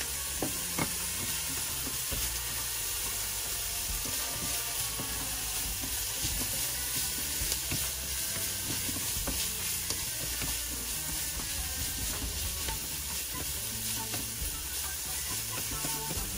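Shredded chicken sautéing in a stainless steel pan, a steady sizzle as it is stirred and tossed with wooden chopsticks, with occasional clicks of the chopsticks against the pan.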